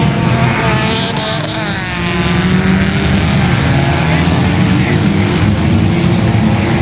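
A pack of enduro race cars' engines running together on a short oval track, a steady mass of engine noise; about a second in, an engine's pitch rises and falls as cars pass close.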